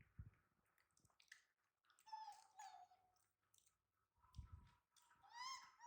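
Baby monkey giving two short high-pitched cries, one about two seconds in and another near the end, with a few soft low thumps.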